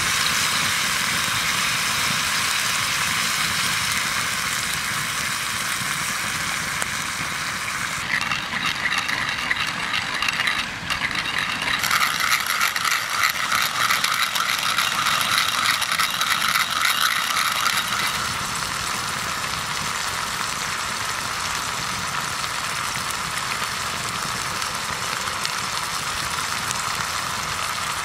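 Beef stroganoff in a cream sauce sizzling and simmering in a skillet over a wood fire. From about eight seconds in, a pepper mill grinds for about ten seconds with a brief break near the start, a rapid fine clicking over the sizzle.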